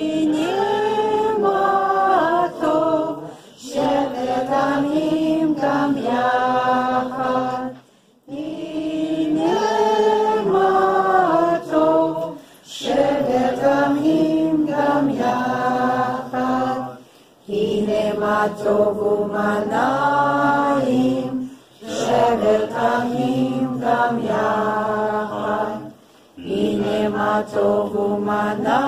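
A group of voices singing together, in phrases of a few seconds each with short breaks between them.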